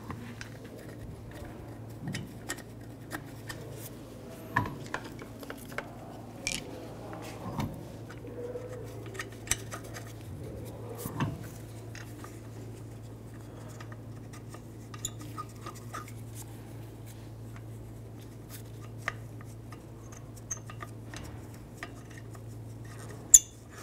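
Lug nuts being threaded by hand onto the wheel studs: scattered small metallic clicks and scrapes, with one sharper, louder click just before the end.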